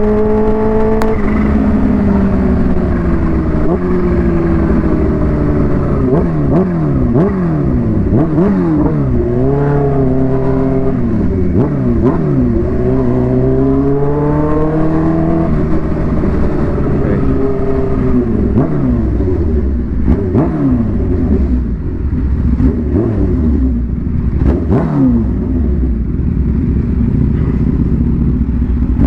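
Supercharged Kawasaki Ninja H2 inline-four with a Vandemon exhaust, ridden hard through the gears: the engine pitch climbs and drops again and again as it accelerates, shifts and backs off. Wind noise on the rider's microphone runs underneath.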